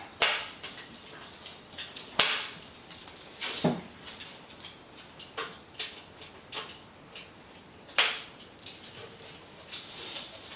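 Scattered sharp clicks and knocks of metal parts being handled and fitted on a chicken plucker's base, the loudest about a second in, near two seconds, around three and a half seconds and near eight seconds. A faint steady high whine sits underneath.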